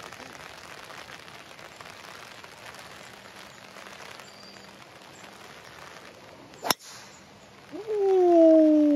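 Rain falling steadily; about two-thirds of the way through, a golf driver strikes the ball off the tee with one sharp crack. About a second later comes a loud, drawn-out vocal cry that slides down in pitch for about a second and a half.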